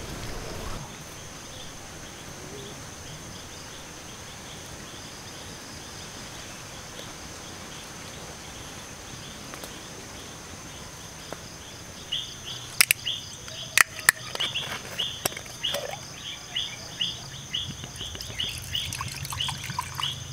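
Forest ambience at dusk: a steady high drone of insects, and from about twelve seconds in a rapid run of chirping calls, roughly two a second. A few sharp snaps come just after the chirping begins and are the loudest sounds.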